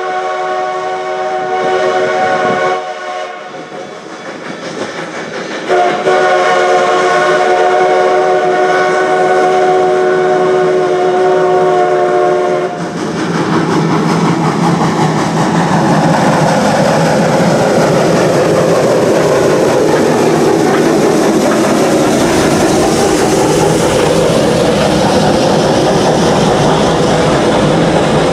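Steam locomotive's chime whistle sounding two long blasts for a road grade crossing, the second about seven seconds long. The train then passes close by with its wheels clattering over the rails.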